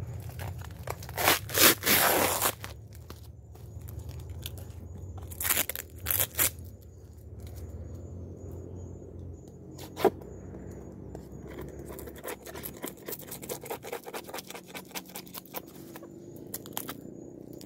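Protective wrapping being torn and peeled by hand off a bee bait container. There are loud ripping tears about one to two seconds in and again around five to six seconds, a single sharp snap about ten seconds in, and then a quick run of small crackling rips near the end.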